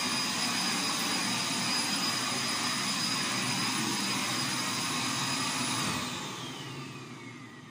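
Household vacuum cleaner running steadily with a high motor whine. About six seconds in it is switched off, and the motor whine falls in pitch as it spins down.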